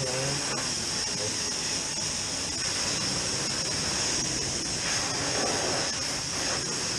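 High-pressure washer lance spraying a continuous jet of water onto a dirt bike's front wheel and the concrete floor: a steady hiss.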